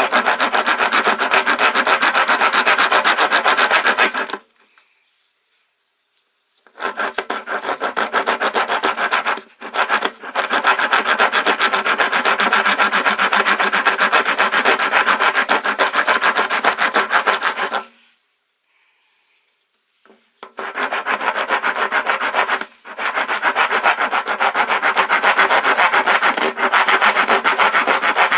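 Coarse half-round Daiso woodworking rasp filing wood in quick, continuous back-and-forth strokes. It works in three long runs, stopping for a couple of seconds about four seconds in and again a little past halfway.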